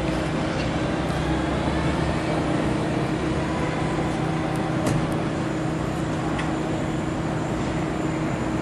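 Steady low hum of an idling vehicle engine over street traffic noise, with a few faint clicks.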